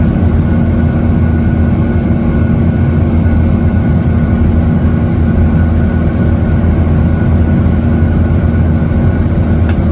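Airliner engines droning steadily, heard inside the passenger cabin: a constant low hum with a steady mid-pitched tone over it.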